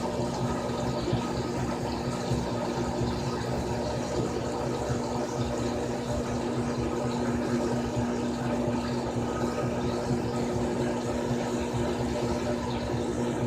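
Frigidaire Gallery Series top-loading washing machine running: a steady motor hum with a strong low tone over an even wash of water noise.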